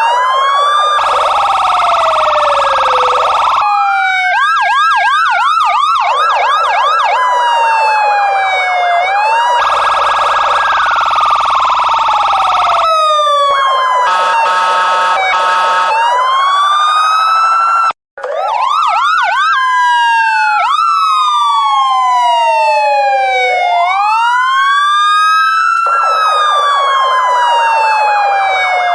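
Loud police siren switching between patterns: slow rising and falling wails, a fast up-and-down yelp, rapid buzzy warbling, and short steady tones, with one sudden brief cutout about 18 seconds in.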